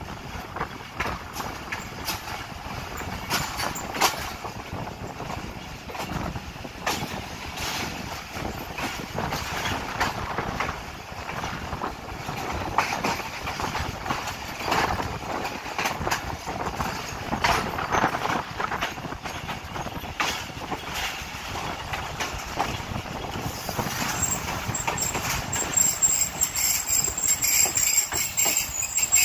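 Passenger train coaches rolling slowly over yard trackwork: steady running noise with irregular sharp clacks of the wheels over rail joints and points. A thin high tone joins near the end.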